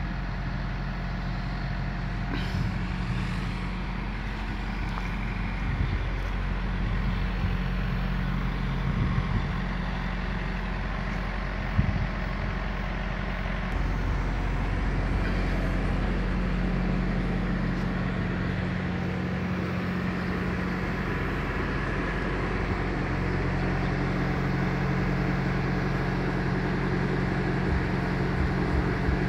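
Volvo FH truck's diesel engine idling steadily, a low even hum, with a couple of brief light knocks.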